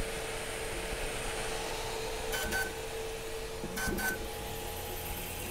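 Flsun Super Racer delta 3D printer running a print: its motors and fan make a quiet, steady hum. The hum is broken twice by short, higher-pitched motor chirps, about two and a half and four seconds in.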